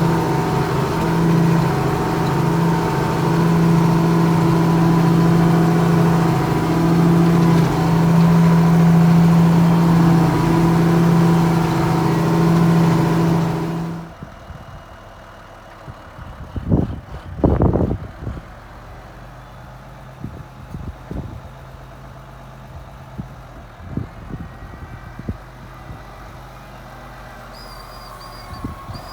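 Ford TW-15 tractor's six-cylinder diesel engine running steadily under ploughing load, a loud even drone that cuts off abruptly about halfway. A quieter engine hum follows with a few sharp knocks, and a high beeping tone starts near the end.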